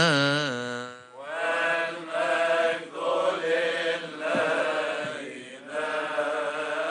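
Liturgical chanting in a church. A held, wavering sung note ends about half a second in; then a new chanted line begins about a second in and goes on in short phrases with brief breaks.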